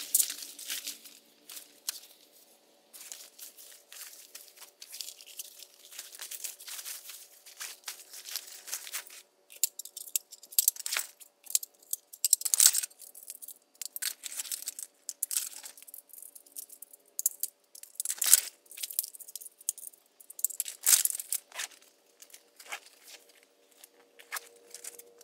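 Camping gear being packed: fabric and plastic bags rustle and crinkle, with short ripping sounds. The sounds come in irregular bursts, louder around the middle and again later on.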